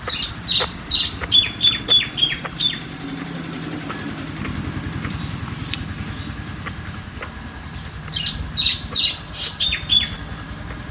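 A bird calling in two quick runs of short, sharp chirping notes, about four a second. The first run comes at the start and the second about eight seconds in.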